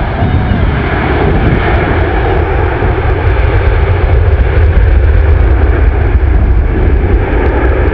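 Jet engines of a Boeing 767-300ER airliner during its landing rollout just after touchdown: a loud, steady rumble that grows louder through the second half.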